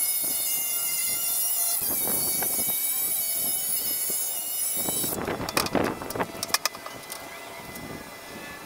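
Cordless circular saw cutting through a board with a steady high whine, dipping briefly about two seconds in. The saw stops a little after five seconds in, followed by a quick run of knocks and clatters as the saw and wood are handled.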